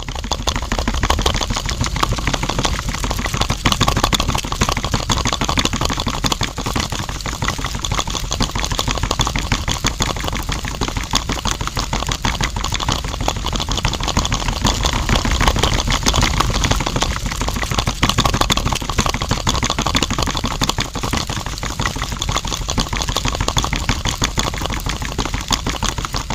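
Small electric motor of a miniature homemade juice machine running steadily with a fast rattling buzz.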